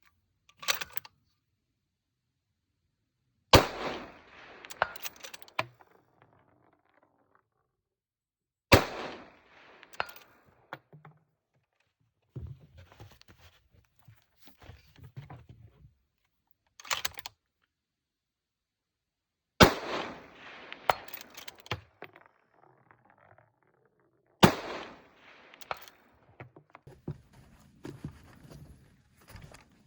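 Four rifle shots a few seconds apart, each followed by a few seconds of clattering and knocking handling noise.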